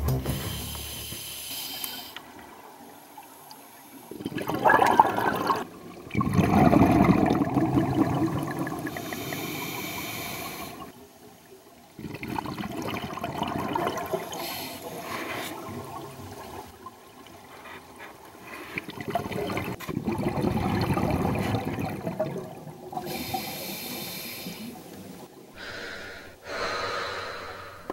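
Scuba diver breathing through a regulator underwater: several slow breaths a few seconds apart, with exhaled bubbles rushing and gurgling out between hissing stretches.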